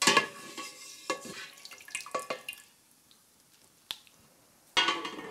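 A slotted nylon spatula knocks and scrapes inside a stainless steel stockpot of broth as dried mushrooms are fished out, and broth drips back into the pot. A ringing clang opens it and a few sharp knocks follow. There is a short quiet spell about three seconds in, then a louder clatter near the end.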